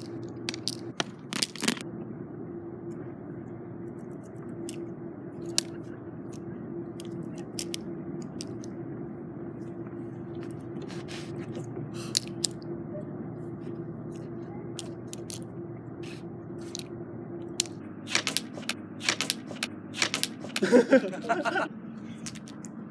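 Plastic juggling rings clicking and clacking as they are thrown and caught, sharp clicks at an uneven pace over a steady background hum. Near the end the clicks come thicker and louder.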